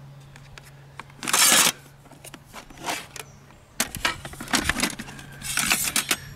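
Thin metal plates of a folding Fennek grill being pulled out and unfolded by hand: sheets sliding, scraping and clinking against each other. A loud scrape comes about a second and a half in, and a run of clicks and rattles comes near the end.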